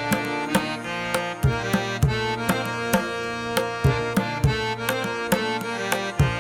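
Instrumental background music: drum strokes in an uneven rhythm over a sustained melody of held notes.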